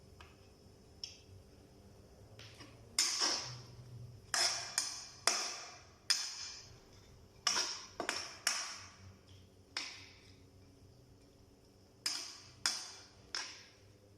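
A spatula knocking and clanking against a cooking pan while the minced pork mixture is stirred. The knocks come irregularly, often two or three close together, each with a brief ringing tail, with a pause of a couple of seconds before the last few.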